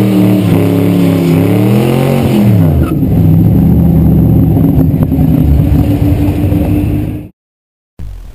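Drag car engine revving up and down, then held at high revs while the rear tyre spins and smokes in a burnout. The sound cuts off suddenly about seven seconds in.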